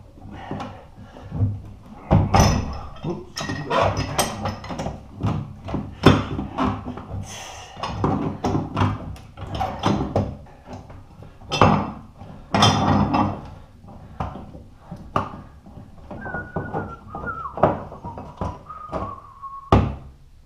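Pipe wrench unscrewing a long threaded steel radiator pipe from its fitting: irregular metal clanks and knocks as the wrench is worked and reset on the pipe. In the last few seconds a drawn-out squeak falls in pitch as the pipe turns.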